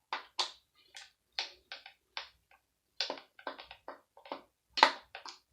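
Irregular sharp clicks and clinks of screws, small metal parts and hand tools being handled while a power supply is taken apart, about two to three a second, with the loudest clack near the end.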